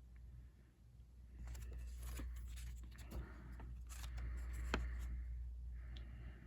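Crisp paper banknotes ($2 bills) being handled and rustled, with a run of sharp crackles in the middle. A breath follows near the end.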